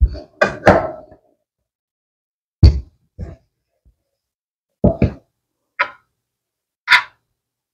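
Scattered knocks and thumps from rolling out dough with a wooden rolling pin on a floured counter, about eight in all with silence between. Near the end comes a sharper, higher knock as a spoon works in the pan of filling.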